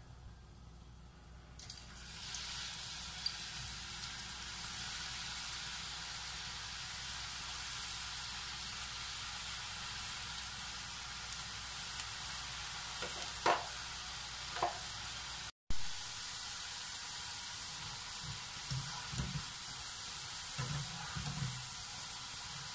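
Par-fried potato sticks sizzling steadily in hot oil for their second, crisping fry, the sizzle starting about two seconds in as they go into the pan. Near the end, light knocks of a slotted spoon stirring the fries in the oil.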